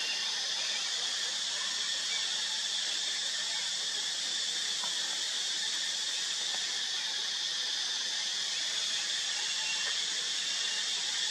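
Steady, high-pitched insect chorus: a continuous shrill hiss with no breaks.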